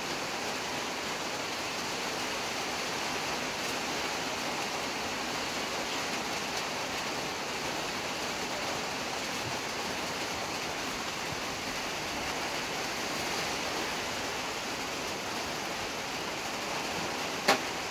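Pan of rasgullas cooking in boiling sugar syrup on the stove, a steady hiss. A single sharp click comes near the end.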